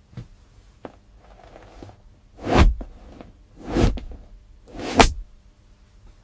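Three whooshes about a second apart, each swelling to a sharp peak, after two faint clicks.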